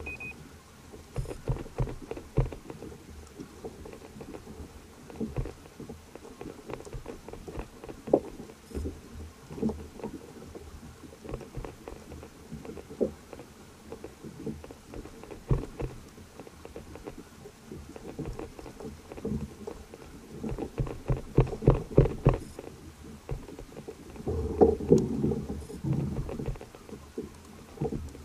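Water slapping and knocking against a fishing kayak's hull at sea, in irregular knocks and thumps. A denser, louder patch comes about 25 seconds in.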